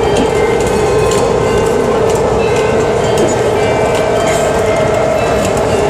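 BART train running, heard from inside the car: a steady, loud rail rumble with a hum and a thin high whine, and scattered faint clicks.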